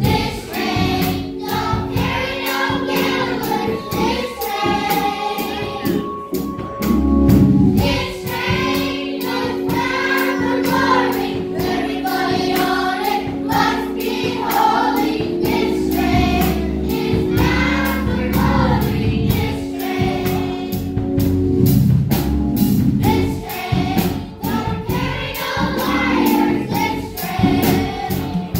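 Children's choir singing a gospel song over a steady beat.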